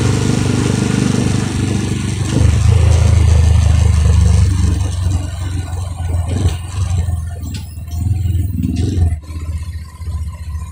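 Motorcycle engine running while riding along a city street, loudest through the middle, then dropping quieter about nine seconds in as the bike slows in traffic.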